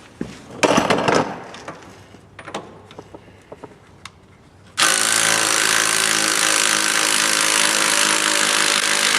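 Impact wrench hammering at a bolt. A brief burst comes about half a second in, then a long run of steady hammering starts about five seconds in.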